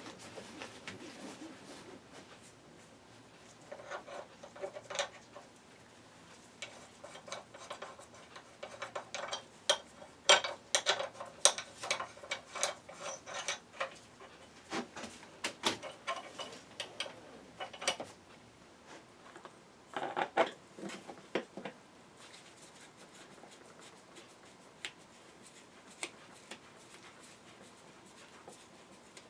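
Light metallic clinks, clicks and rattles of tools and metal seat parts being handled, in scattered runs that are busiest about ten seconds in, with another short cluster about twenty seconds in.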